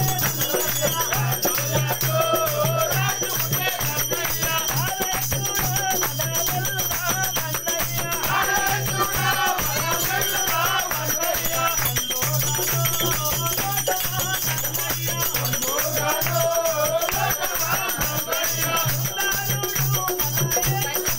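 A group singing a Christmas carol, with hand clapping and a rattling percussion beat that goes on without a break.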